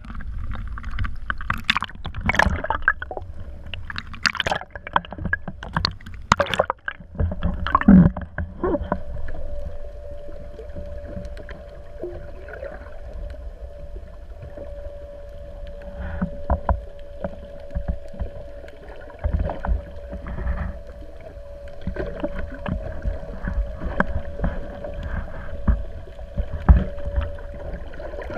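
Sounds aboard a small fishing boat: sharp knocks and clatter against the hull, then a steady hum from about eight seconds in, over a constant low rumble.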